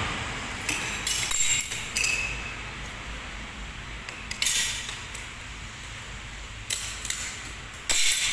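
Sheet glass being broken out by hand along CNC-scored circle lines: about six short, sharp cracking and scraping sounds of glass, spread out one after another.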